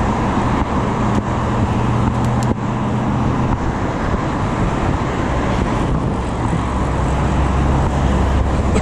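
Steady road traffic from cars passing in the lanes alongside, with a low engine drone that drops away about three and a half seconds in.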